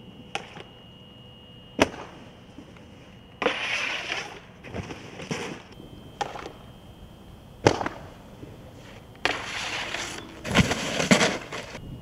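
Snowboard gear on hard-packed snow and metal: a few sharp knocks and clacks, with two longer rough scraping stretches about a third of the way in and near the end.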